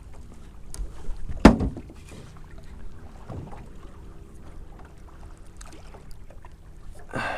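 On a small fishing skiff: a faint steady hum with small knocks and water sounds, and one sharp knock about a second and a half in.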